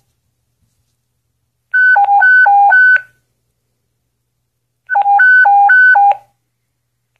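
Two-tone dispatch alert over a Motorola portable police radio: two bursts of a quick alternating high-low beep, each a little over a second long, about three seconds apart. It is the alert that comes before an emergency broadcast to all units.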